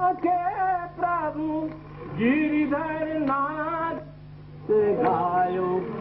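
Slow singing with long, wavering held notes over a steady low drone, in three phrases with short pauses between them.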